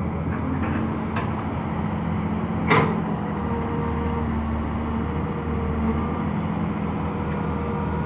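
200D tracked excavator's diesel engine running steadily under load as it digs, with one sharp loud clank about two and a half seconds in.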